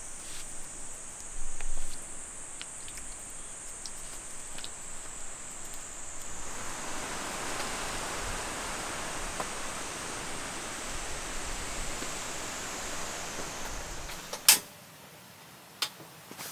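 Outdoor forest ambience with a steady high-pitched insect drone. About halfway in, an even rushing noise grows louder over it. A single sharp click near the end cuts off to a much quieter background.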